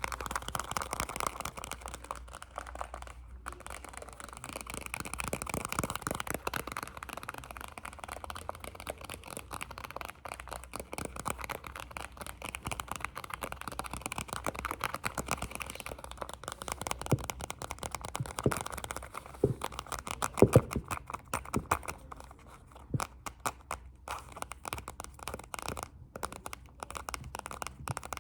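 Close-microphone ASMR hand sounds: a dense run of fast, light taps and rustling, with a few sharper taps about two-thirds of the way through.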